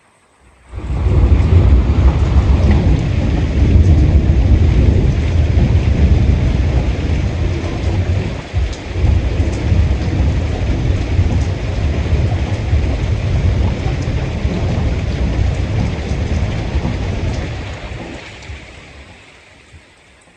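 Heavy rain pouring down with a deep rumble under it. It comes in suddenly about a second in, stays loud and steady, and fades out over the last few seconds.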